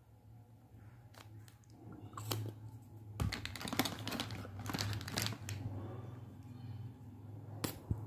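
Lipstick tubes being handled: a run of small clicks and clattering as the cased lipsticks are picked up from a pile and turned in the hand, with a sharp click near the end. A steady low hum runs underneath.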